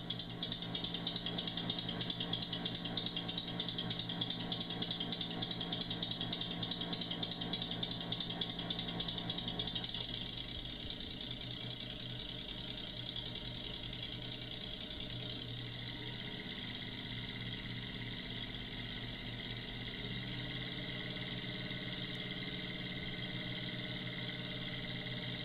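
Home-built three-cylinder compressed-air engine running steadily on air, vibrating somewhat, its note shifting slightly a few times.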